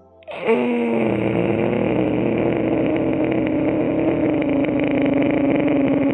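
A man breathing in slowly through a constricted throat in ujjayi pranayama, making a long, rough, rasping breath sound. It starts about a third of a second in, its pitch dips slightly at first and then holds steady.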